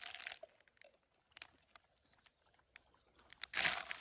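Potato chips crinkling and crunching as they are pressed onto a sandwich: a short rustle at the start, scattered small clicks, and a louder crunch about three and a half seconds in.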